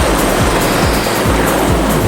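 Music with a steady beat, about two bass-drum thumps a second with hi-hat ticks, laid over the steady running noise of a Bell 412 helicopter.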